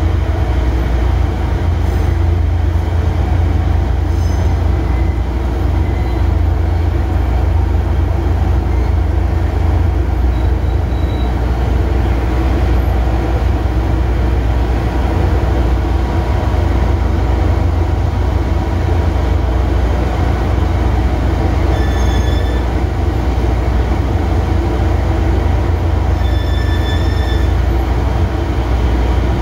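Cab of a JR Freight DF200 diesel-electric locomotive rolling slowly through a freight yard, its engine running with a steady low drone. Brief high-pitched wheel squeals come about 22 seconds in and again around 26 seconds in as it takes a curve.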